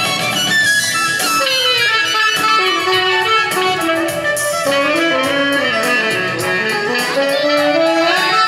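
Tenor saxophone, fitted with a Barkley MS8 mouthpiece and a Rico Royal reed, playing a flowing melody through a microphone and PA during a soundcheck, with accompaniment underneath.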